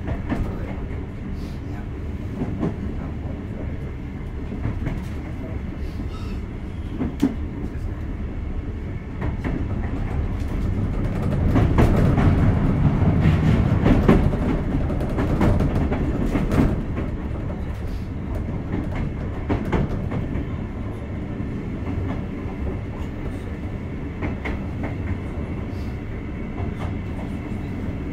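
Sotetsu 8000 series electric train running at speed, heard from inside the car: a steady rumble of wheels on rail with scattered rail-joint clicks. The rumble swells louder for several seconds in the middle and then settles back.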